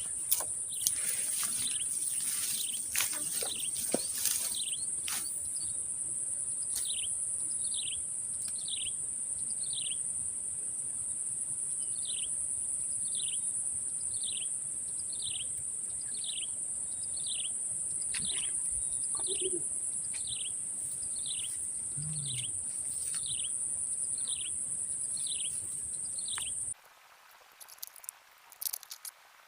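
Steady high-pitched drone of an insect chorus, with a bird repeating a short falling call about once a second. There are a few clicks in the first seconds, and all the sound cuts out about three seconds before the end.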